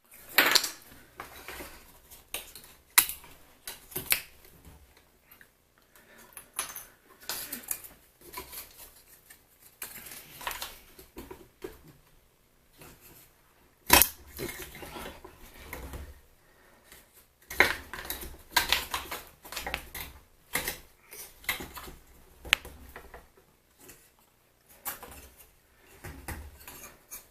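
Irregular metallic clinks and knocks of steel tools and vise parts being handled and worked, with a few sharper strikes among them.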